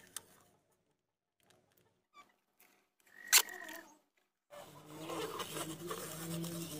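Clear packing tape being pulled off the roll and wound around a leg. There is a short sharp rip about three seconds in, then a longer, steadier stretch of tape unrolling from about four and a half seconds.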